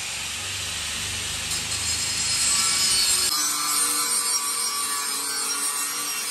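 Angle grinder grinding steel: a steady, continuous hiss of the abrasive disc on metal, smoothing the bumper pieces level before welding. About three seconds in the low rumble drops away and a few steady tones from the motor come through.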